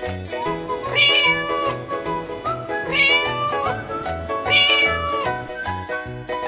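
Domestic cat meowing three times, about two seconds apart, over background music with a steady beat.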